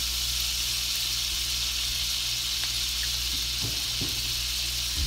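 A pat of butter sizzling steadily as it melts in a hot nonstick frying pan, a continuous hiss over a low steady hum.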